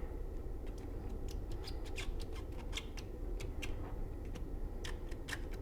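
Light, irregular clicks and ticks from a clamp collar being fitted and worked around a pipe, over a steady low hum.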